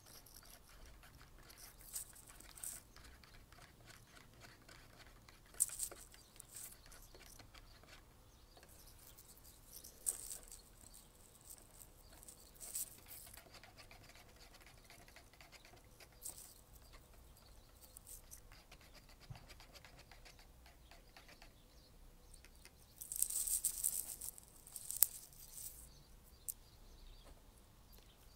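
Faint rustling and scratching close to the microphone, with scattered light clicks. A louder stretch of rustling comes a few seconds before the end, closed by a sharp click.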